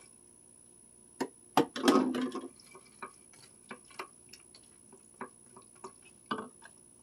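Peas and carrots being emptied from a plastic tub into a glass baking dish: a couple of sharp knocks, a louder clatter and rustle about two seconds in, then scattered light ticks and taps as pieces drop and are pushed out by hand.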